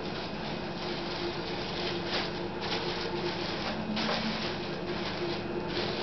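Paper towel and a thin plastic bag rustling and crinkling in short bursts as a vegetable is wrapped by hand, over a steady low background hum.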